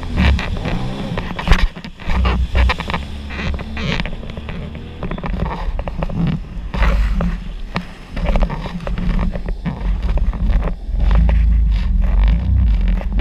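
Sea-Doo personal watercraft running at speed over choppy water: a steady engine and jet-pump drone under repeated sharp slaps and splashes as the hull hits the waves.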